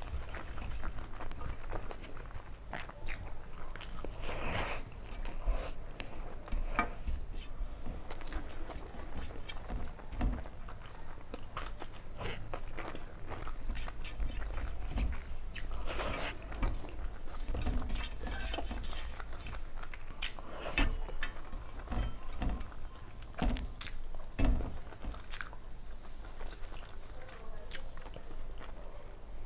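Chewing and biting of rice with fish curry eaten by hand, with irregular short mouth clicks throughout.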